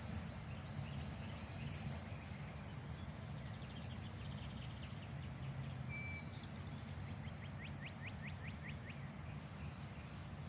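Small wild birds calling: a quick high trill about three seconds in, a short whistle, then a run of about seven quick repeated notes later on, over a steady low outdoor rumble.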